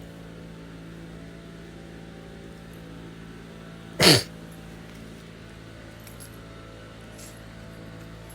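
A single loud sneeze about four seconds in, short and falling in pitch, over a steady low hum.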